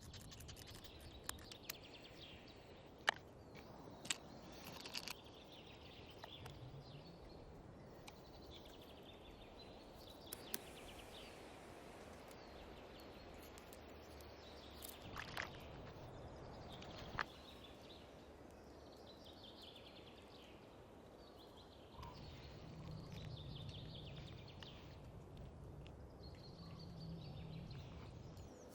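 Faint outdoor ambience with small birds chirping on and off, and a few sharp clicks scattered through it.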